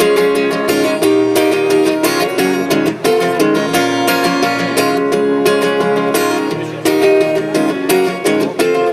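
Acoustic guitar strummed in a steady rhythm, an instrumental break between sung verses of a song.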